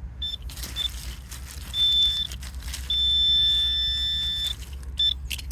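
Metal detector beeping on a target in a single high steady tone: a few short beeps, a half-second tone about two seconds in, a longer tone of about a second and a half, then a short beep near the end. The target is a bit of buried wire.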